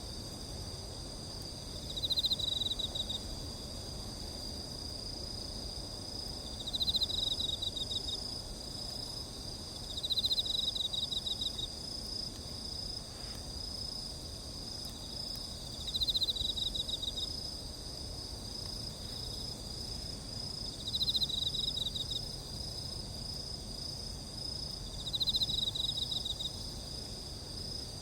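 Crickets singing: one high trill runs on without a break, while another cricket gives a pulsed trill about a second long every four to six seconds. A low, even background noise lies beneath.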